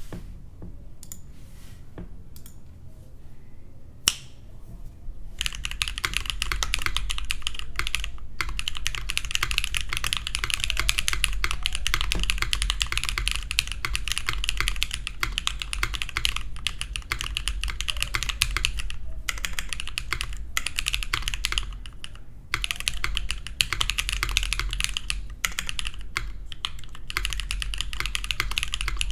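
Custom HHKB-layout mechanical keyboard with BSUN switches (stock lube, springs swapped) being typed on. A few scattered keystrokes and one sharper clack about four seconds in, then fast continuous typing from about five seconds on, broken by a few short pauses.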